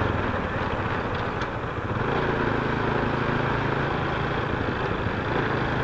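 Motorcycle engine running while riding, with wind and road noise. The engine eases off briefly about a second and a half in, then picks up again.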